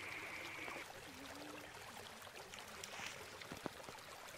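Faint steady hiss of running rainwater, with a high steady tone that cuts off just under a second in and a few light clicks near the end.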